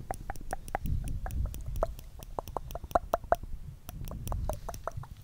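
Wet mouth sounds close to the microphone: a rapid, irregular run of tongue clicks and lip smacks.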